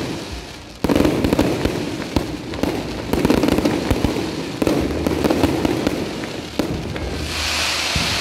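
Aerial fireworks display: shells bursting with sudden loud booms every second or two, each fading away, over continual crackling. A hissing crackle swells near the end.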